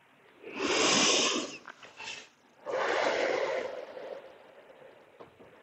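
A person breathing deeply and audibly close to the microphone, slow deliberate breaths paced with tai chi movements. Two loud breaths: the first starts about half a second in and lasts about a second, and the second starts a little before three seconds in, runs longer and trails off.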